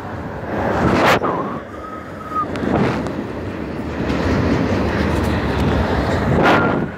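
Container freight train rolling past, a steady rumble of wheels on the rails, with two loud surges, one about a second in and one near the end, and a thin high whistle-like tone twice.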